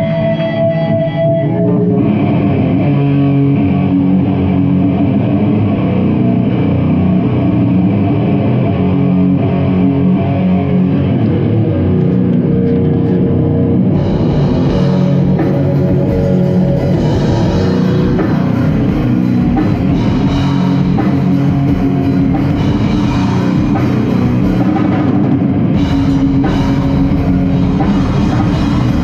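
Goregrind band playing live: a heavy guitar and bass riff, with the full drum kit and cymbals coming in about halfway through.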